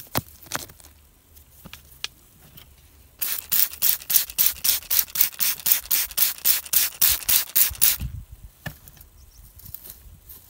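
A hand spray bottle squirted rapidly, about five quick hissing squirts a second for nearly five seconds, wetting a rough agate-bearing rock to show its pattern. A few small clicks of handling come before and after.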